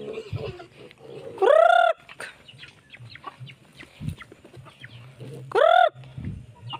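Chickens clucking, with two loud calls that rise and fall in pitch, about a second and a half in and again near the end, among many small scattered clucks.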